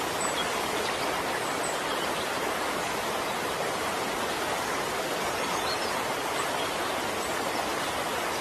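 Fast-flowing alpine river rushing over its rapids, a steady, even roar of water.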